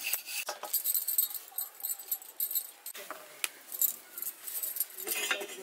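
Glass bangles jingling, with light clicks and taps, as hands work roti dough and dry flour. There is a louder, busier patch of handling noise near the end.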